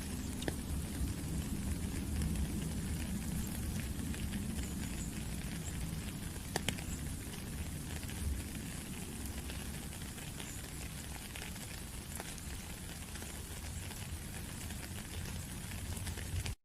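Steady rain with scattered drops ticking close by, over a low, steady gurgle of running water.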